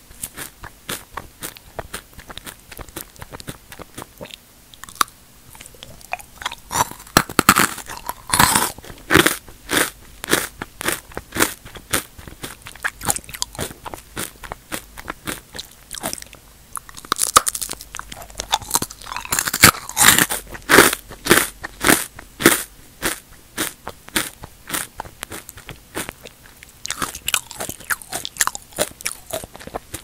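Crisp potato and sweet potato chips being bitten and chewed close to a microphone: rapid, sharp crunches that come in heavier bursts several times.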